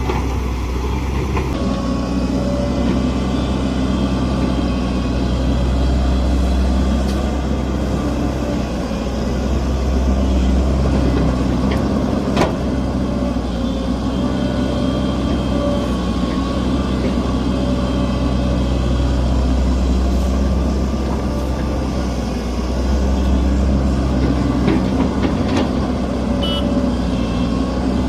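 Large Hitachi hydraulic excavator's diesel engine running steadily, its note swelling and easing several times as the load changes, with a sharp click about halfway through.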